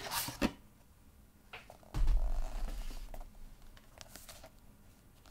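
Handling noises as a paperback manga is lifted out of a cardboard crate: a few brief rustles and clicks, with a low bump about two seconds in.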